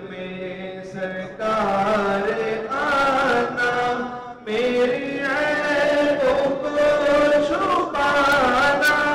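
A voice chanting a devotional melody in long, held phrases with gliding pitch, with two short breaks between phrases.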